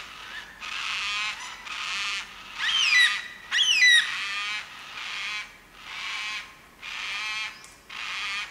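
White-tailed black cockatoos calling: a harsh, raspy call repeated about once a second. About three seconds in come two louder calls that sweep up and down in pitch.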